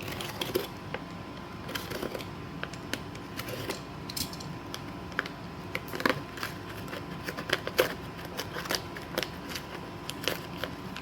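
Hands opening the packaging of a firework cake: irregular clicks, crinkles and scrapes of wrapping and cardboard being pulled and torn away.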